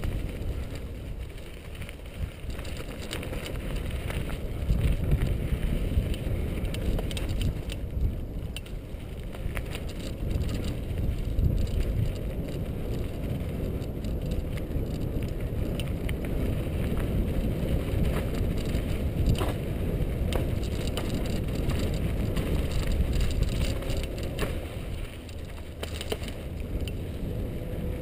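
Mountain bike riding down a dry dirt singletrack: a steady low rumble of tyres on dirt and air rushing past the microphone, with scattered sharp rattles and clicks from the bike jolting over bumps.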